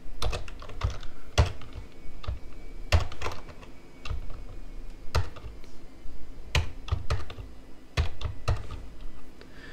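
Typing on a computer keyboard: irregular keystrokes, a few a second, with short pauses between them.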